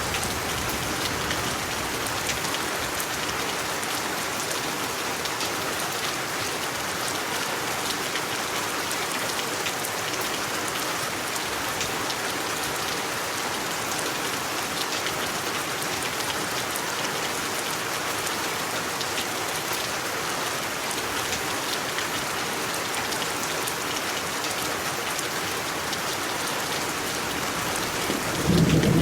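Steady rain falling, an even hiss dotted with the ticks of individual drops. A low rumble of thunder comes in near the end.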